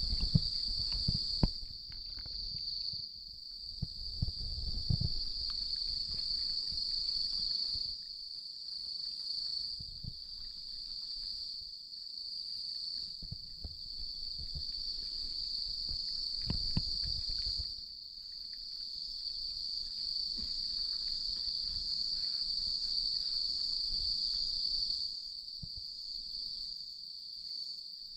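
A steady, high-pitched chorus of insects chirping without a break, with scattered low thumps and rustles under it.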